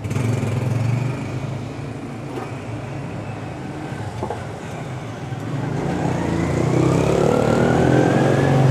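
Road traffic with a steady low engine hum, and a motor vehicle that rises in pitch and gets louder over the last few seconds, as if accelerating past.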